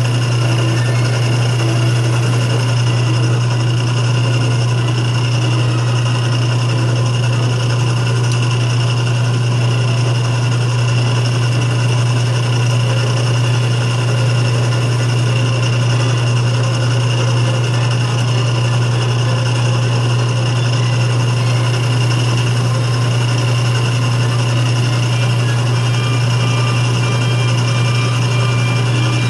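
Atlas 6 metal lathe running steadily, a constant low hum with a fainter steady higher whine.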